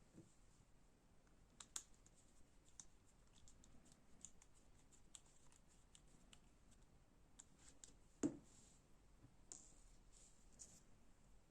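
Faint, irregular light clicks and taps of small metal knife parts and a bit driver being handled, with one louder knock about eight seconds in.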